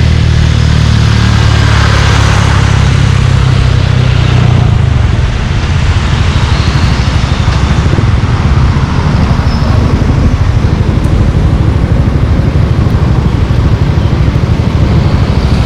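Exhaust of a Suzuki Gixxer 155's single-cylinder engine, fitted with a Yoshimura exhaust, running steadily at low revs, then dropping about five seconds in to a lower, pulsing beat as the throttle is let off.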